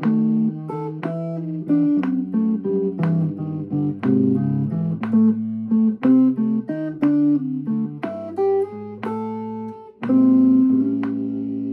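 Gold-top Les Paul-style electric guitar playing a blues line of quick picked notes, then a note struck about ten seconds in and left to ring.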